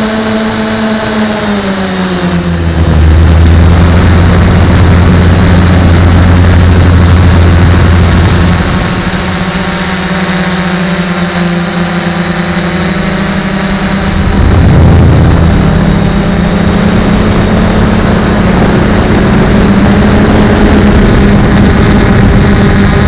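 DJI drone's electric motors and propellers buzzing, heard close from the aircraft's own camera. The steady hum drops in pitch about two seconds in, and a louder low drone comes in for several seconds, fades, then returns briefly in the middle.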